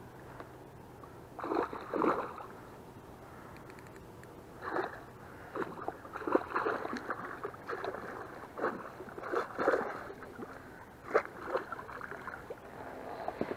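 A hooked pike thrashing at the surface beside an inflatable boat, making a run of irregular splashes and sloshes, the first about a second and a half in.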